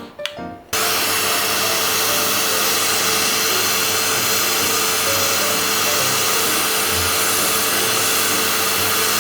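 Oneisall pet grooming vacuum with a clipper attachment switched on about a second in, then running steadily with a rushing, hissing suction noise and a steady whine.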